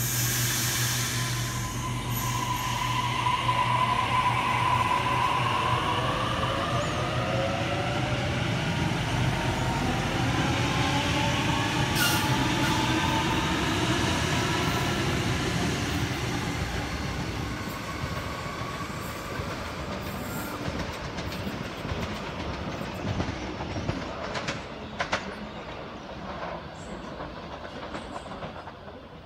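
Sydney Trains Waratah double-deck electric train pulling out and accelerating: its traction motors give a whine that rises in pitch in several stages over the wheel and rail noise. It fades as it draws away, with a few clacks over the track near the end.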